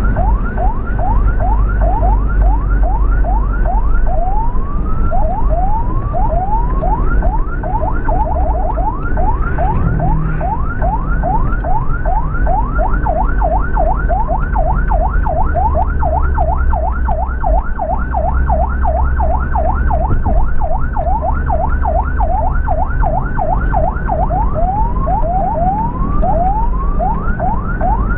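Ambulance electronic siren in a fast yelp, rising sweeps about three or four a second, switching a few times to slower rising wails and once to a rapid stutter. A steady low rumble of vehicle engine and road noise runs underneath.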